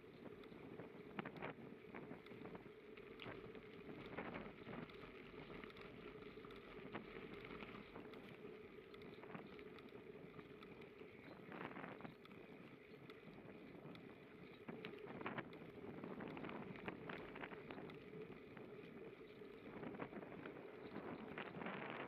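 Bicycle riding along a surfaced path: a steady rolling noise from the tyres and bike, mixed with wind on the microphone, with occasional short clicks and rattles.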